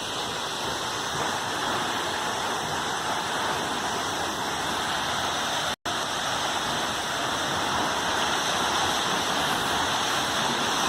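Waterfall rushing, a steady dense roar of falling water, cut off for an instant about halfway through.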